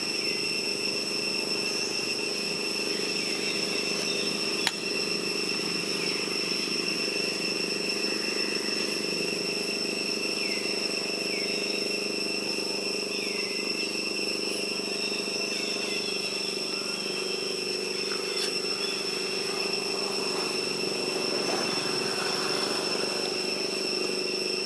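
Forest ambience: a steady, high-pitched insect drone with a low steady hum beneath it and a few short falling chirps, and a single sharp click about five seconds in.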